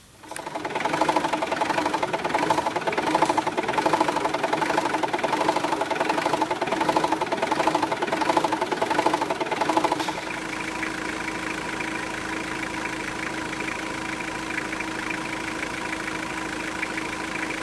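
Mitsubishi 4D56T 2.5-litre turbo diesel engine running with a pulsing diesel clatter, then settling about ten seconds in to a steady, even idle. The engine is being retested for the rough idle that a new crank sensor pickup blade and timing belts were fitted to cure.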